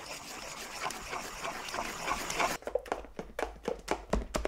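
A spoon stirring wet flour batter in a stainless steel bowl, first as a steady wet scraping. From about two and a half seconds in, it changes to quick, even strokes of the spoon beating the batter, several a second.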